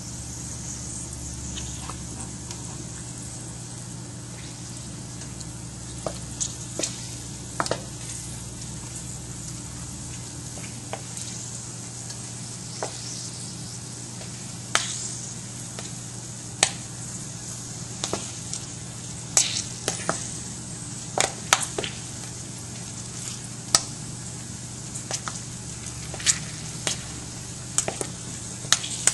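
Whole fresh cranberries simmering in water in a pan. A steady bubbling hiss runs under sharp pops as berries burst. The pops are sparse at first and come more often in the second half.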